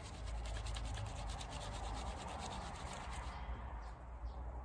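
Wet, lathered T-shirt fabric rubbed briskly between the hands, scrubbing a stain remover into a coffee stain: a fast run of scrubbing strokes that fades away after about three seconds.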